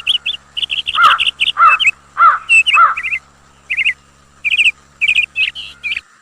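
Birds calling: a run of quick, high chirps, with a lower arched call repeated about every half second over the first three seconds; the sound cuts off about six seconds in.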